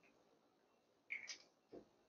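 Near silence, with a faint short squeak about a second in and a soft tap just after, as a whiteboard marker is handled and put to the board.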